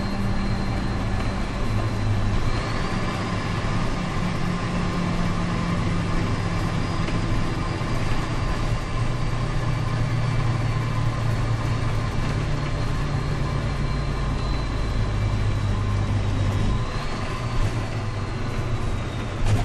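International DT466 diesel engine of a straight-piped school bus with no muffler, running steadily under way, heard from inside the cab. A thin high whine rises in pitch about two and a half seconds in and again near the end, as the engine note shifts.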